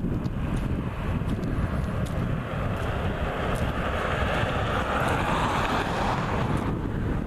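Strong wind buffeting the microphone with a constant low rumble. A rushing hiss swells up from about halfway through and cuts off suddenly near the end.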